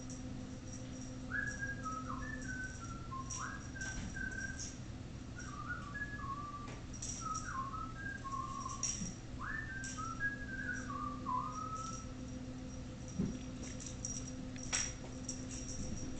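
A person whistling a tune in short gliding notes, starting about a second in and stopping about three quarters of the way through. Light ticking runs underneath, and two sharp knocks come near the end.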